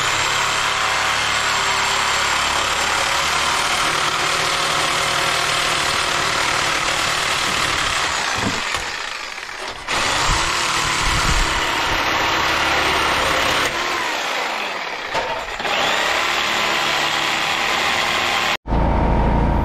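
An engine running steadily close by, loud and even. The sound changes abruptly about ten seconds in and cuts out for a moment near the end.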